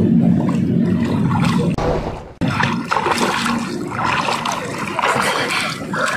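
Pool water splashing and sloshing as a child swims at the surface, arms and legs churning the water, busier in the second half.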